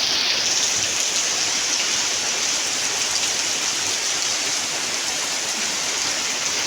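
Heavy rain pouring down onto a tin roof, a steady, dense hiss of countless drops.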